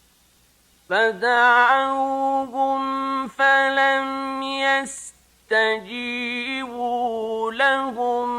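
A man's voice reciting the Quran in the melodic mujawwad style, drawing out long ornamented notes with slides between pitches. It comes in about a second in, breaks off briefly for a breath about five seconds in, then carries on.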